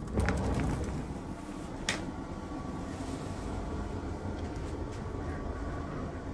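A regional train car's exterior passenger door opening at a platform: a sudden rush of low rumbling with a few clicks, a sharp knock about two seconds in, and a short hiss, then steady train noise.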